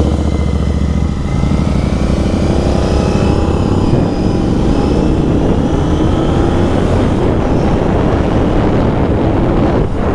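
Royal Enfield Continental GT 650's 648 cc parallel-twin engine running as the bike is ridden, the engine note rising slowly and steadily as it gathers speed.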